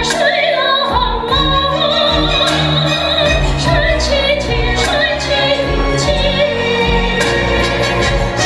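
A woman singing a solo song, with instrumental accompaniment and a regular low beat.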